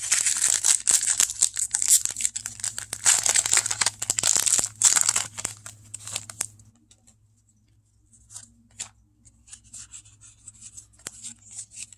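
Foil Pokémon booster pack wrapper being torn open and crinkled, loud and continuous for about six and a half seconds. After that come faint rustles and light ticks as the trading cards are pulled out and handled.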